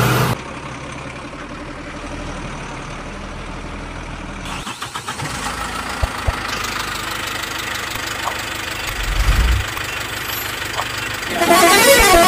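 Vehicle engine idling steadily, a sound effect laid over the toy bus, with a brief louder low rumble about nine seconds in. Near the end a short chiming jingle plays.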